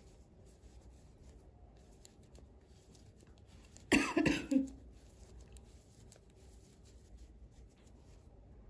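A single cough about four seconds in, over faint, scattered clicking of metal knitting needles working yarn.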